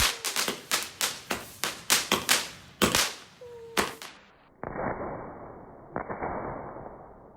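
Consumer firework cake (a 96-shot 'Color of pearl' cake) firing its shots in rapid succession, sharp bangs about three a second. Then come two single bangs, each trailed by a hiss that fades away.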